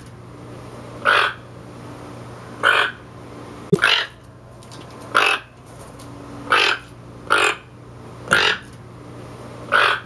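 Toucan croaking: a series of about eight short, harsh calls spaced roughly a second apart.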